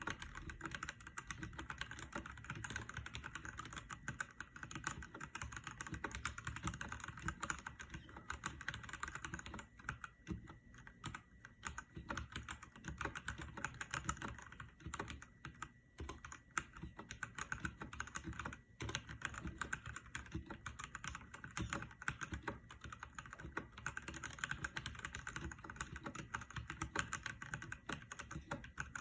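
Continuous fast typing on a mechanical keyboard: a dense stream of keystroke clicks, with a few brief lulls where the keystrokes thin out.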